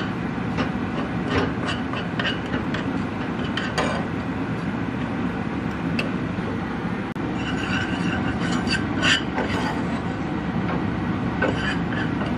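A steel spoon stirring spice powder into ghee in a small non-stick pan, with scattered taps and scrapes against the pan that come thickest between about seven and ten seconds in, over a steady low rumble.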